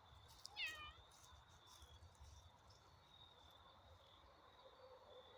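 One short animal call with a falling pitch, about half a second in, over a faint steady high tone.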